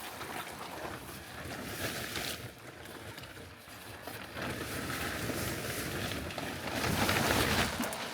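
Sea swell washing around a skiff at a rocky shore, a surge building about halfway through and loudest near the end before easing off.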